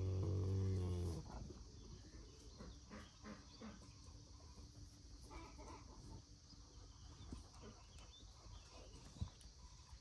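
A cow's low, drawn-out moo, ending about a second in, followed by faint farmyard rustling and a single sharp knock near the end.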